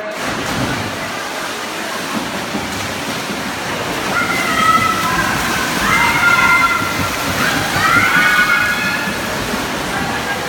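Swimmers splashing through a freestyle race under steady crowd noise, the noise starting suddenly as they dive in. Spectators' shouts and cheers rise above it from about four seconds in and carry on for several seconds.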